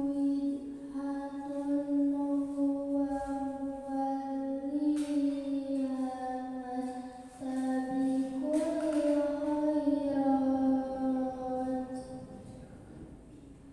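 A girl reciting the Qur'an in the melodic qiro'at style into a microphone, holding long drawn-out notes that rise and fall gently; the phrase rises a little about two-thirds of the way in and trails off near the end.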